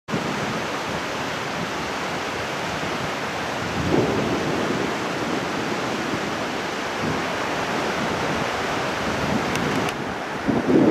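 Fast-flowing river running high and rushing over rapids: a steady noise of churning water, swelling slightly now and then.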